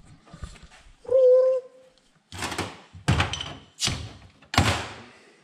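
Four dull knocks, about one every 0.7 s, each ringing briefly, with a short steady tone about a second in.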